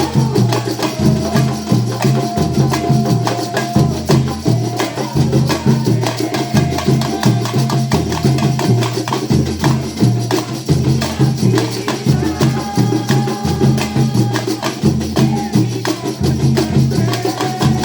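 Instrumental music with a steady beat: a repeating bass line under busy percussion, with a held melody line above.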